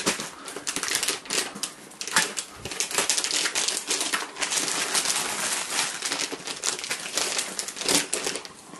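Plastic packaging crinkling and rustling irregularly as it is handled and pushed aside by hand.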